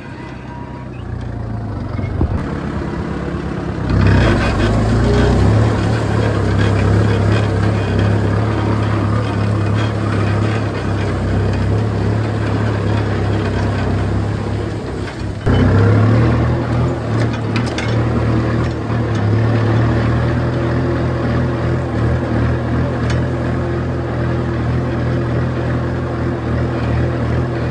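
Kubota M6240 tractor's four-cylinder diesel engine running steadily under load while it pulls a disc plough through dry soil. It gets louder about four seconds in and drops out briefly near the middle before picking up again.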